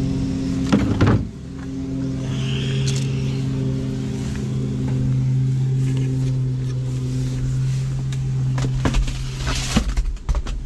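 Steady mechanical hum of an idling engine. Clattering knocks from items being handled about a second in, and again near the end.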